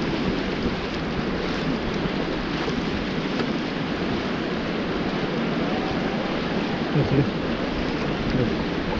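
Fast river water rushing around an inflatable raft, a steady wash of noise with gusty wind buffeting the microphone and a brief bump about seven seconds in.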